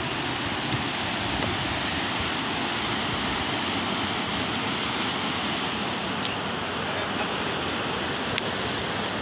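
The Porali River in flood, its muddy water rushing past with a steady, even sound.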